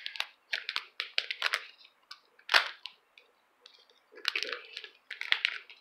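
Hockey trading cards and their pack being handled on a table: a quick run of sharp clicks and snaps, then two louder snaps, about two and a half and five seconds in.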